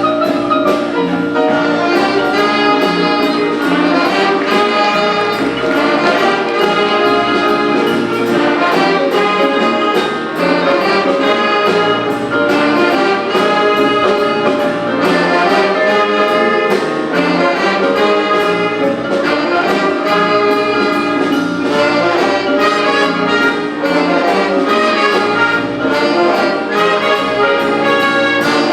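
A big band playing jazz: trumpets and trombones in full ensemble over a drum kit, with a steady ride-cymbal beat.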